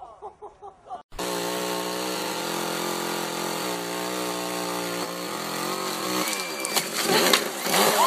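A chainsaw running at a steady speed, starting abruptly about a second in, its pitch sagging slightly now and then. About six seconds in it gives way to shouting and a few knocks.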